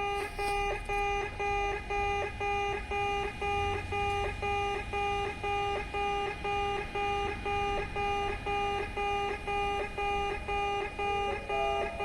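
Electronic railway level-crossing alarm of the old 'pee-pee' type, beeping steadily in a pitched electronic tone about one and a half to two times a second.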